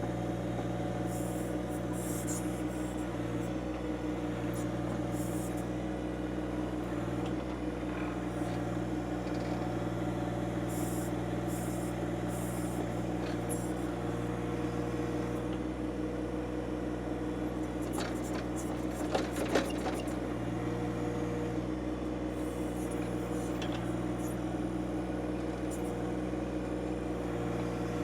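John Deere 2025R compact tractor's three-cylinder diesel engine running steadily as its backhoe digs at a tree stump. A couple of sharp knocks come about two-thirds of the way through.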